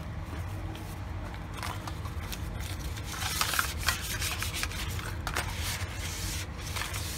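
Wrapped butter rubbed and scraped over the inside of a metal baking pan to grease it: repeated rubbing strokes with small clicks, busiest in the middle, over a low steady hum.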